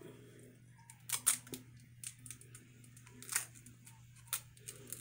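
Boiled seafood shells cracking and clicking as they are pulled apart by hand: a few sharp cracks, loudest about a second in and just past three seconds, over a steady low hum.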